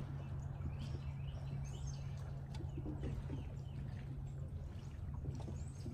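Birds chirping in short, scattered calls over a steady low hum.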